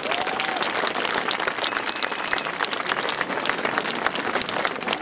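A large crowd applauding, many hands clapping at a steady level.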